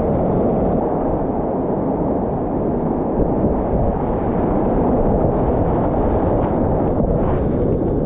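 Whitewater rapids rushing and churning around a kayak, a steady, loud, low roar of water.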